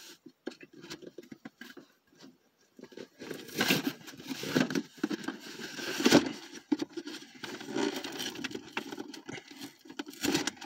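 A delivery package being opened by hand: packaging rustling, scraping and tearing in irregular bursts, after a few seconds of near-quiet with only small clicks.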